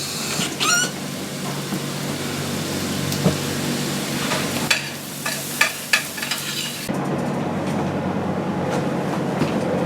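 A pot on the stovetop hissing steadily as it cooks, with a few sharp knocks of cookware and utensils midway; the high hiss drops off suddenly near the end.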